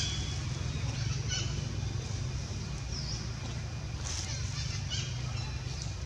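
A few short, high-pitched animal calls, some bending in pitch, scattered over a steady low rumble.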